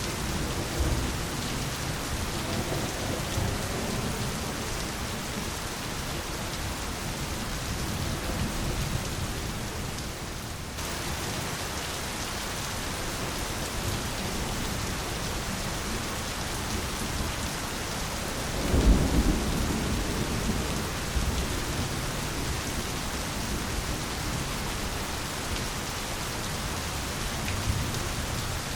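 Steady heavy rain falling, with low rolls of thunder in the first few seconds and a louder thunderclap rumbling about two-thirds of the way through.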